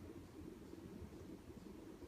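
Sanyo EF-A528A ceiling fan running quietly: a faint, steady low hum with no clicks or changes.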